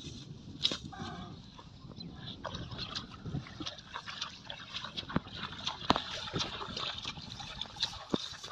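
Feet wading and a multi-pronged fishing spear (teta) jabbing into shallow muddy water, giving irregular splashes and sloshing.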